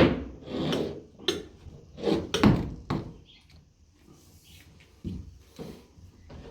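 A run of knocks and clunks from fitting parts to a washing machine, several in quick succession in the first three seconds, then fainter and fewer.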